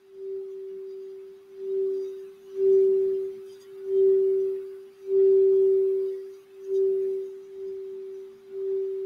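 Crystal Alchemy quartz singing bowl tuned for the throat chakra, sung by circling its rim with a wand. It gives one steady held tone that swells and fades about once a second as the wand goes round.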